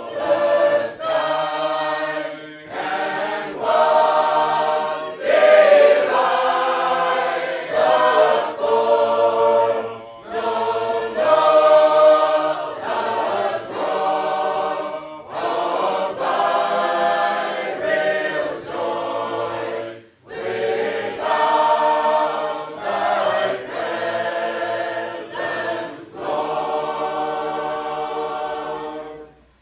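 Sacred Harp shape-note singers, a full room of voices, singing a hymn a cappella in parts, phrase by phrase with brief breaths between. Near the end they hold a long final chord and stop together.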